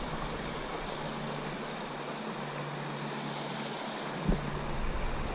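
Steady rushing hiss of river water running over a shallow rocky riffle. A low rumble of wind on the microphone drops away for a few seconds, then comes back with a single short knock about four seconds in.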